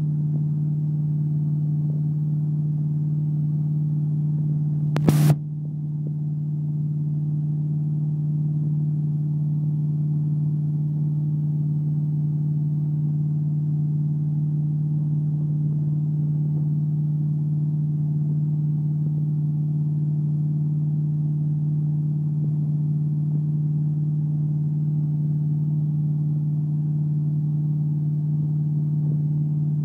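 Motorboat engine running steadily under way while towing, a constant low drone. A brief sharp knock about five seconds in.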